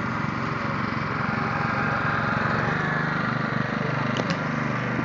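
Walk-behind greens reel mower's small engine running steadily while cutting a golf green, growing a little louder about halfway through.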